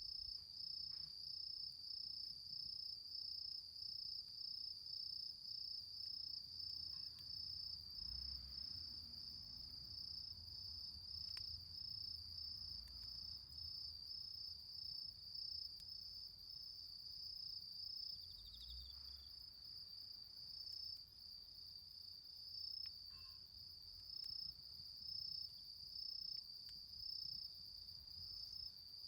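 Crickets chirping in a steady, high, regular pulse, with a few faint low rumbles under it.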